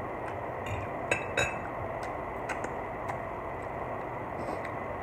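A metal fork clinking lightly against a glass baking dish a few times, the clearest clinks in the first second and a half, over a steady background hum.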